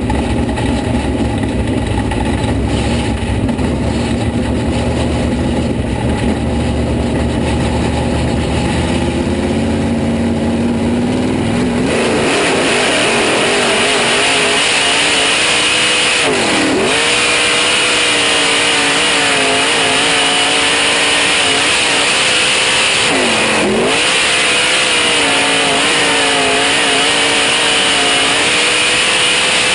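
UMP dirt modified's V8 engine, heard close behind the car: running low and rumbling at first, then revving up hard about twelve seconds in and holding high revs. Its pitch drops sharply and recovers twice, as the throttle comes off and back on.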